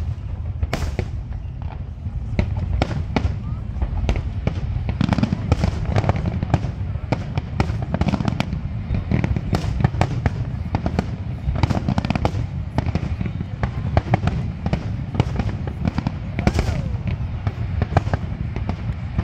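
Aerial firework shells bursting in quick succession: a steady low rumble of booms with many sharp cracks and crackles on top.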